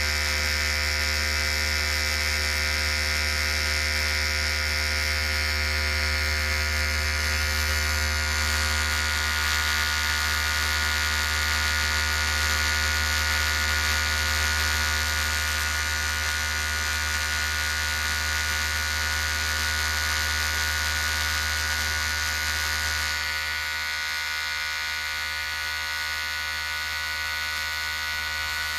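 Electric hair clipper running with a steady buzz. About 23 seconds in, its tone shifts slightly and it drops a little in level.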